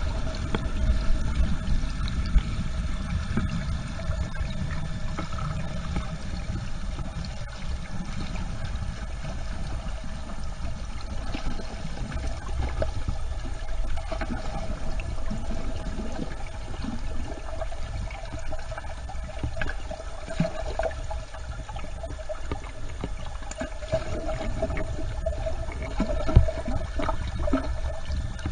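Water rushing and churning, heard underwater, as young zander and water pour in from the surface, with a low rumble that is heaviest in the first few seconds, a faint steady hum and scattered small clicks. A sharp knock comes near the end.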